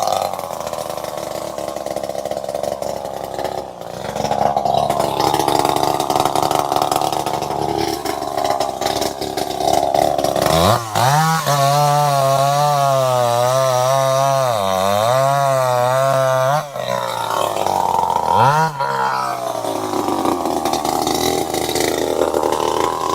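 Two-stroke chainsaw engine running. It is rough and noisy at first, then held at high revs for about six seconds midway as a clear, wavering tone, then rough again with a couple of short revs near the end.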